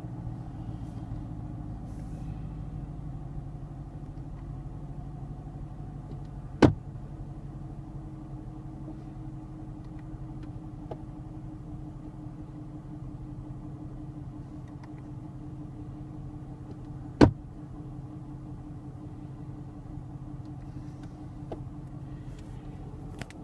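Two sharp, loud pops about ten seconds apart from the recirculation door actuation in a 2017 Camaro's climate-control system, a faulty popping noise. They sound over the steady hum of the car's engine running.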